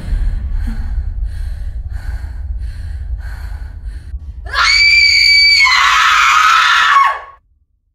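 A young woman screaming: a long, loud, high-pitched shriek starting about four and a half seconds in, dropping lower partway through and cutting off suddenly. Before it, a low drone with faint pulses about twice a second.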